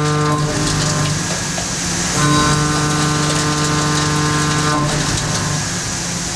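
Kennametal 7792 high-feed shell mill with 16 mm inserts plunge milling steel on a Doosan NHM 6300 horizontal mill. A steady pitched hum sounds during each plunge: one plunge ends about half a second in, and another runs from about two seconds to nearly five. Between plunges there is a hissier wash of noise while the cutter retracts and steps over.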